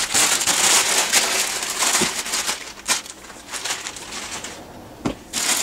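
White packing paper rustling and crumpling as it is handled and pulled out of a cardboard box, busiest for the first couple of seconds and then quieter, with a few light knocks, one near the end.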